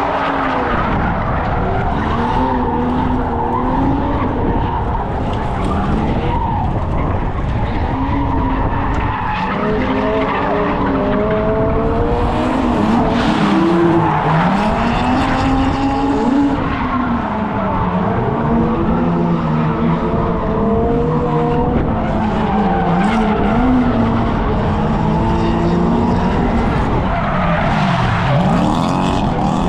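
Drift car's engine revving up and down again and again, with tyres skidding and screeching under it.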